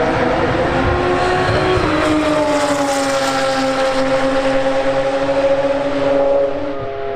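GT race car engine at high revs: its pitch shifts about two seconds in and then falls slowly as the car goes by.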